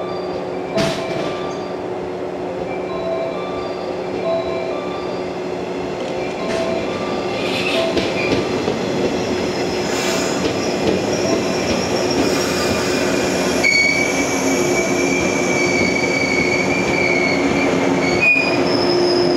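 Yellow JR West 115 series electric train running past and pulling away, with a steady rumble of motors and wheels on rail. From a little past the middle, its wheels set up a high, sustained squeal.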